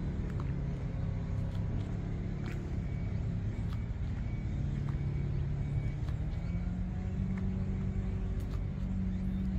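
An engine running steadily, a low hum whose pitch steps up a little about halfway through, with faint scattered clicks over it.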